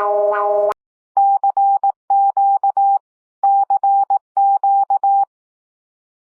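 Emergency alert alarm tones. A pulsing chord-like alert, about two and a half pulses a second, cuts off abruptly. Then a single steady beep tone sounds in four quick groups of long and short beeps, like Morse code.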